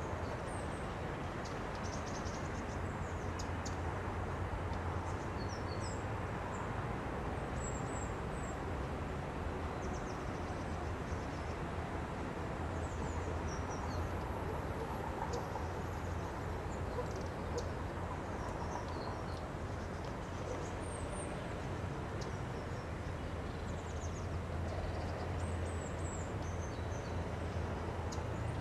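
Steady low rumble of city traffic, with small birds giving brief, high chirps scattered throughout.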